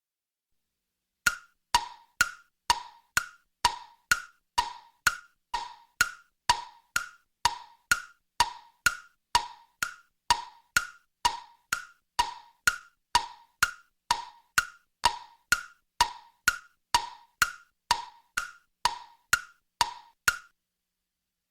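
Hollow wooden tick-tock clicks, about two a second, alternating between a lower and a higher pitch like a wood block or clock ticking. They start about a second in and stop shortly before the end.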